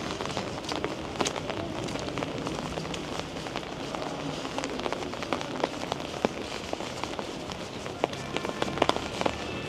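Rain falling: a steady hiss with many sharp drop ticks scattered through it.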